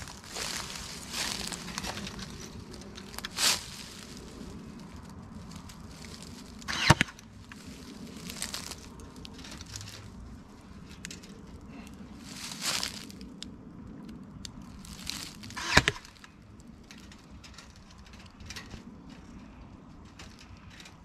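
Cordless Ryobi staple gun firing twice, two sharp snaps about nine seconds apart, driving staples through chicken wire into timber. Between the shots, rustling and crunching from dry leaves underfoot and the wire being handled.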